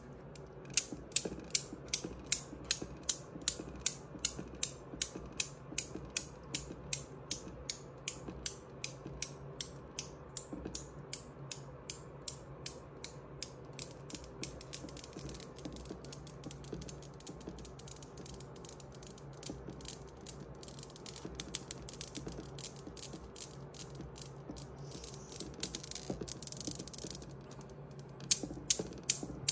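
Steel balls of a desk Newton's cradle clicking against each other in a steady rhythm, about three clicks a second, fading gradually as the swing dies down. Near the end the balls are set swinging again and the clicking returns loud.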